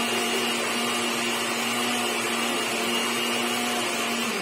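Electric blender motor running steadily while grinding green salsa, then switched off near the end, its tone dropping as the motor winds down.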